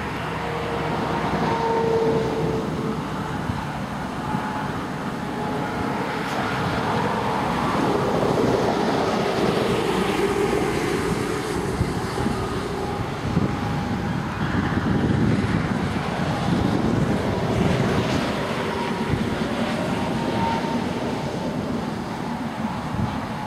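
Strong, gusty wind rushing over the microphone, swelling and easing every few seconds.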